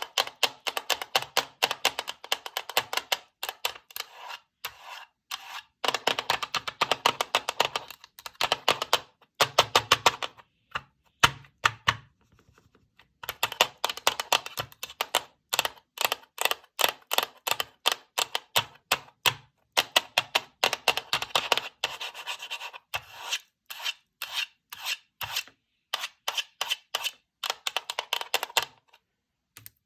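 Handmade paper fidget board being played with: rapid runs of crisp paper clicks and rubbing, with a short pause about twelve seconds in.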